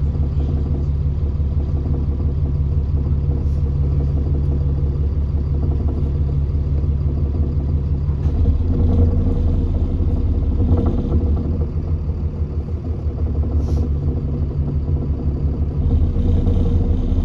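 Diesel engine of an Alexander Dennis Enviro400 Trident double-decker bus running with a steady low drone. It grows louder about eight seconds in, eases off around twelve seconds and picks up again near the end.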